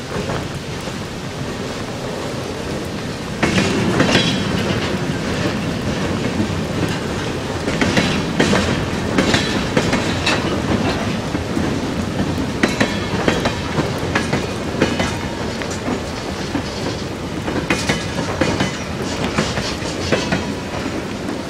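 Freight train of tank cars rolling past close by, its wheels clicking and clattering over the rail joints. The train gets suddenly louder about three and a half seconds in, and the clatter keeps up from there.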